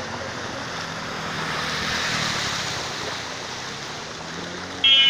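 Floodwater rushing over a road, a steady wash with a faint engine hum beneath it. Near the end a vehicle horn sounds once, briefly and loudly.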